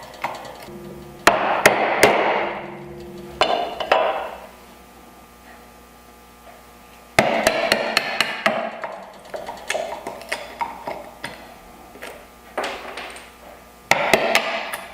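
A wooden chisel handle being struck with a mallet, chopping waste out of dovetail pin sockets: a few heavy blows, a pause, then a run of lighter quick taps and one more heavy blow near the end.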